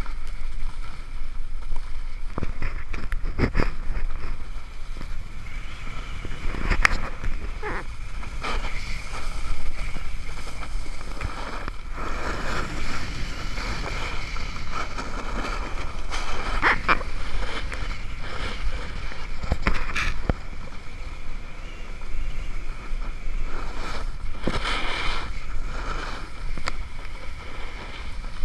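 Snowboard sliding and carving over packed snow, its edges scraping in surges, under a steady rumble of wind buffeting the camera microphone. A few sharp knocks come through.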